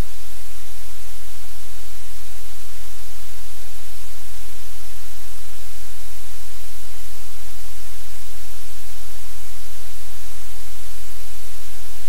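Loud, steady hiss of static over a strong low electrical hum, unchanging throughout: noise on the live cam's audio feed.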